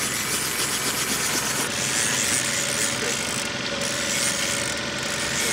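Boat motor running steadily at low speed, a constant drone with a thin whine coming in about two seconds in.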